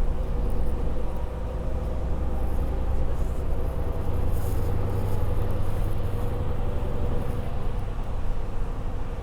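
Interior of a bus in motion: a steady low engine and road rumble in the cabin, with a constant hum in the middle range.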